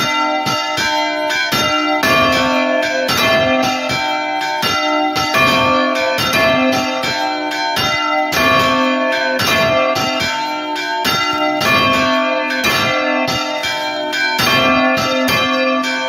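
Bronze church bell on a counterweighted yoke, swung right over and over in the Spanish full-rotation style (volteo), ringing the call to mass. The clapper strikes come rapidly and continuously, several a second, each note running into the next, loud and close in the belfry.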